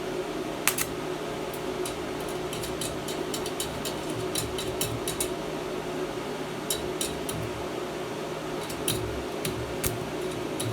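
APT 250 A DC inverter welding machine's cooling fan humming steadily, with scattered sharp metallic clicks and ticks from the metal being worked on.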